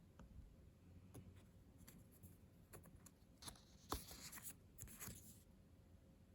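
Faint rustling and light taps of glossy-backed photocards being handled and slid against each other, with a sharper tap about four seconds in.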